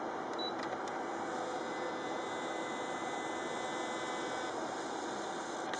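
Mitsubishi P93D thermal video printer making a copy: a short beep and a few clicks as the button is pressed, then a faint whine from about two seconds in that stops about four and a half seconds in as the print feeds out. Steady equipment hum underneath.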